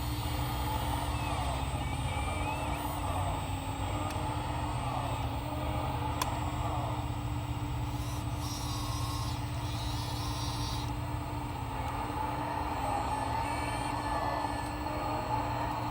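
1/14-scale RC hydraulic excavator running, its hydraulic pump giving a steady hum and whine that waver slightly as the machine works. A hiss lasting about two seconds comes in about eight and a half seconds in.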